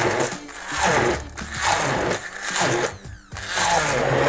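Immersion blender pureeing a bowl of cooked vegetable chunks, its motor surging and easing about five times as the blade chops through the pieces.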